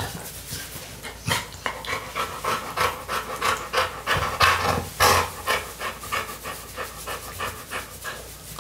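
Black Labrador retriever panting with its mouth open while being petted, in quick, even breaths of about three a second.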